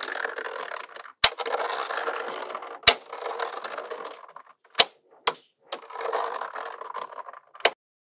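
Magnetic balls clicking as strips of them are laid and snapped onto a wall of magnetic balls: stretches of dense rapid clicking as the balls settle into place, broken by several sharp single clacks.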